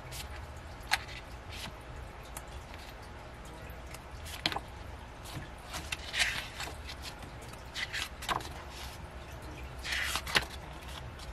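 Paper and plastic rustling with a few sharp clicks and taps as K-pop album contents (cards, booklet, packaging) are handled, over a low steady hum.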